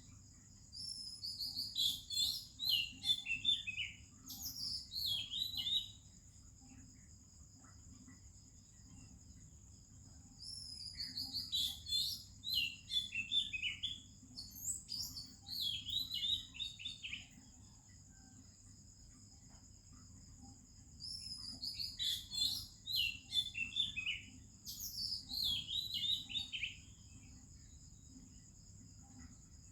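Oriental magpie-robin singing: three bouts of varied whistled phrases that fall in pitch, about ten seconds apart, with quiet pauses between them. A steady two-tone high insect drone runs underneath.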